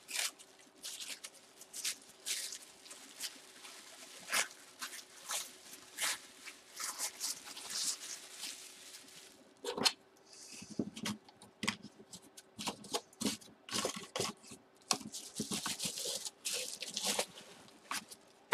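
Packing paper crinkling and rustling as hands handle and fold it, with scattered light taps and knocks. A faint steady hum runs underneath.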